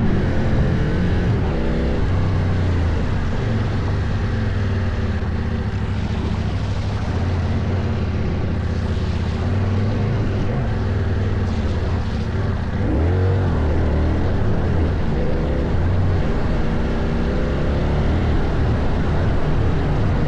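2024 CFMOTO Ibex 800 adventure motorcycle's parallel-twin engine running under changing throttle off-road, its pitch rising and falling with the revs, with a sharp rev rise about thirteen seconds in.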